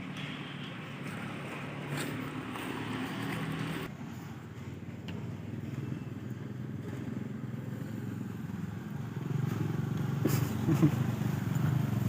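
A motor vehicle's engine running, with a steady low rumble that grows louder over the last few seconds. A single sharp click sounds about ten seconds in.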